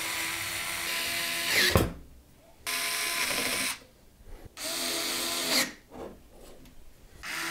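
Cordless electric screwdriver running in three short bursts of about a second each, driving screws in the PC case's metal frame. The motor whine rises slightly in pitch at the end of the first run, where there is also a thump.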